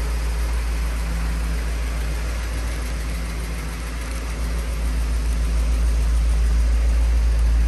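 A 1982 Mercedes-Benz 500 SL's 5.0-litre V8 engine idling steadily, with a low rumble that grows louder in the second half.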